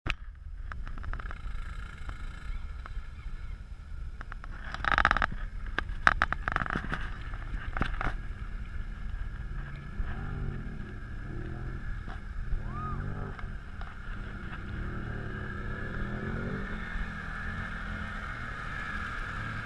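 Utility vehicles driving through shallow water: engines running and rising and falling in pitch, with water splashing and wind buffeting the microphone. A few sharp knocks a few seconds in.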